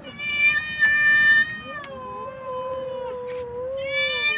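A cornered kitten yowling defensively in long, drawn-out, wavering cries, loudest in the first second and a half, with a second, lower wavering cry overlapping it.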